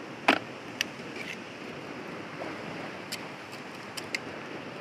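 Steady wash of sea surf against rocks, broken by a few sharp clicks of a metal blade striking rock: the loudest is a knock about a third of a second in, followed by lighter clicks.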